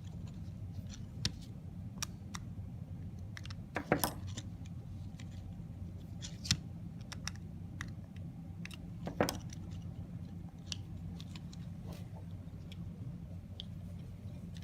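Small spray chamber parts clicking and clinking as they are handled and fitted around the impact bead, with three louder clinks about 4, 6.5 and 9 seconds in.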